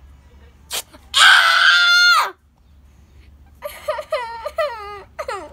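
A brief sharp sound, then a girl screams loudly in pain for about a second as tape is pulled from her arm hair. From about the middle on she gives a run of short cries, each falling in pitch.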